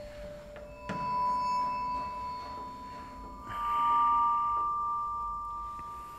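A small metal ritual bell struck twice, each strike ringing on with a clear sustained tone; the second strike, about two and a half seconds after the first, rings a little higher.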